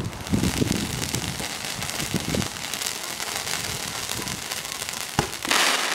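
Two ground fountain fireworks spraying sparks, a steady hiss full of fine crackles. A single sharp pop comes about five seconds in, and the hiss swells louder near the end.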